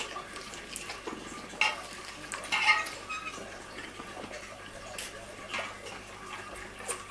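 Light, scattered clinks and knocks of plates and food being handled during a meal: a handful of short separate clatters, the loudest about two and a half seconds in.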